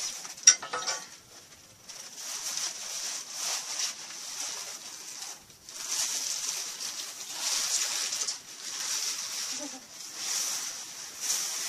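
Plastic packaging rustling and crinkling in irregular patches as items are handled, with one sudden sharp sound about half a second in.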